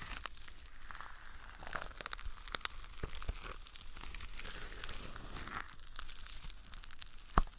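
Plastic wrapping or packaging being handled, crinkling and tearing, with scattered sharp clicks and one louder sharp knock near the end.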